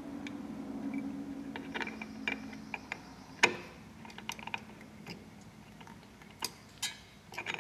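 Light metallic clicks and taps of a GY6 kickstart gear being slid into its case bushing and turned to mesh with the neighbouring gear, with one sharper click about three and a half seconds in.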